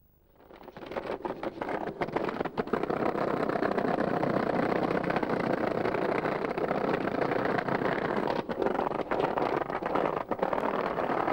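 Skateboard wheels rolling over rough tarmac, a steady gritty rumble that fades up after a brief silence, with a few sharp clacks from the board.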